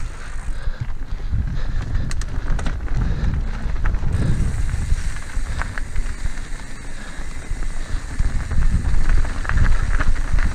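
Mountain bike rolling over cobblestones: a rough, steady rumble from the tyres with scattered rattling clicks from the bike over the stones.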